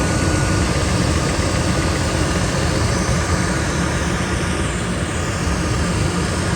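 1999 Ford F-250's 5.4-litre two-valve V8 idling steadily, running again now that the seized AC compressor clutch has been bypassed with a shorter belt.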